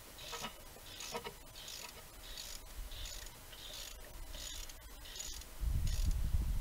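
Ratchet wrench unscrewing a spark plug with a long socket. Its pawl clicks in about ten short runs, a little over half a second apart, as the handle swings back and forth. A loud low rumble comes in near the end.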